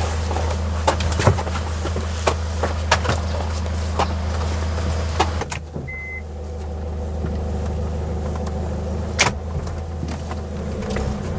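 A steady low mechanical hum with many scattered clicks and knocks, and one short high beep about six seconds in.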